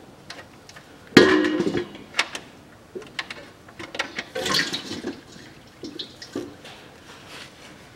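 Used engine oil draining from the sump of a Ford Ranger 2.5 turbodiesel into a metal drain pan as the drain plug is worked out. A loud clatter comes about a second in, and more splashing around four to five seconds in.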